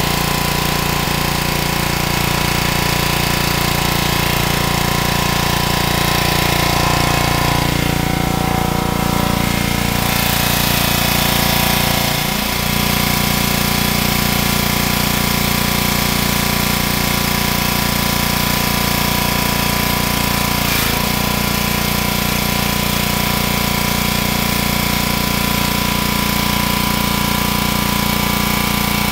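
A small engine running steadily, with water spraying from a hose onto a fishing net.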